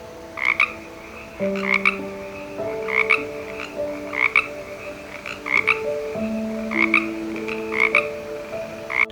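A frog croaking in a regular rhythm: a short double croak repeated about every second, some eight times.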